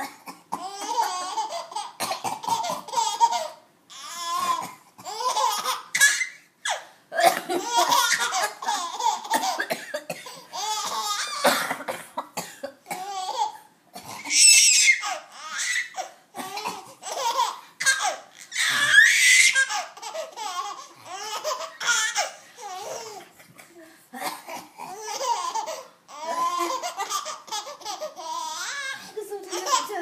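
A baby laughing in repeated fits, with an adult's coughs breaking in between that set her off again.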